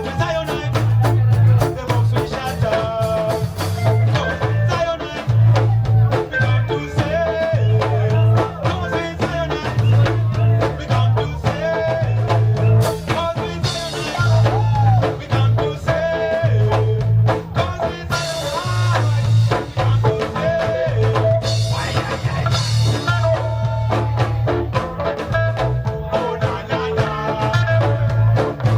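Live reggae band playing an instrumental passage: a repeating bass line under drum kit and guitar, with no vocals.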